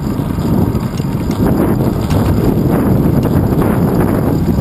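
Wind buffeting the microphone of a handlebar-mounted GoPro Hero 2 on a moving bicycle, mixed with a steady low rumble and irregular rattling from road vibration over the asphalt.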